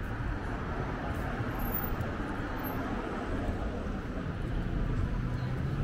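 Busy city street ambience: a steady low rumble of road traffic going by.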